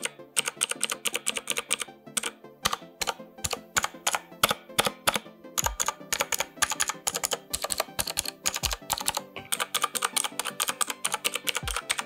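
Typing on an Eyooso Z11 mechanical keyboard with Huano blue clicky switches: a rapid, crisp run of sharp key clicks, several a second, with a slight spring ping in the switches.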